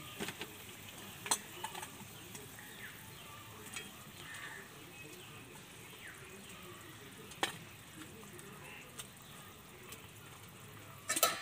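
Fish curry boiling gently in a wok as hilsa pieces are added from a steel bowl, with a few sharp clicks of metal and a cluster of clinks near the end.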